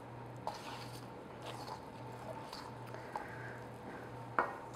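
Spatula stirring thick chocolate muffin batter in a stainless steel bowl: faint squishing, with a few light clicks, the clearest near the end.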